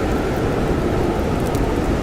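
Blizzard wind blowing as a steady, dense rush with a deep rumble, with a few faint crackles of a campfire on top.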